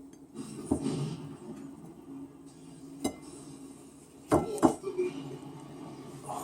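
Kitchen utensil and dish sounds: a knife scraping and clinking against a plate while butter is put on corn on the cob. There are about four sharp clinks, two of them close together a little past the middle.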